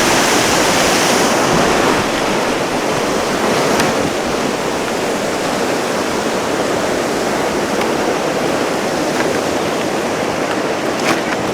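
Loud, steady rush of falling or fast-flowing river water, a little louder in the first two seconds.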